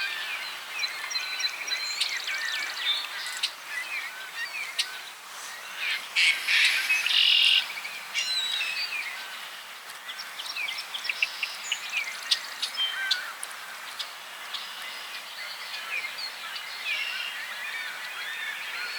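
Several birds chirping and calling, many short overlapping calls, with one louder, harsher call lasting about a second and a half about six seconds in.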